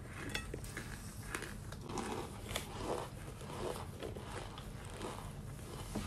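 Baked cornstarch chunks being bitten and chewed, with irregular crisp crunches and crackles, mixed with fingers squeezing and digging through handfuls of loose cornstarch powder in a bowl.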